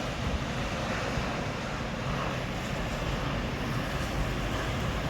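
Wind blowing steadily, with gusts buffeting the microphone in a low, rumbling rush of noise.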